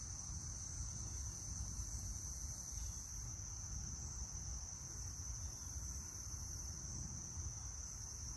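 Insects chirring steadily on one high pitch, over a low rumble.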